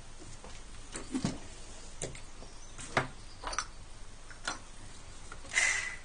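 Handling noise: a few scattered light clicks and knocks, then a short hiss near the end.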